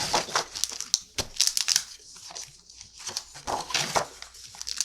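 Planner pages and dividers rustling and crinkling as they are handled and turned, in a few irregular swishes.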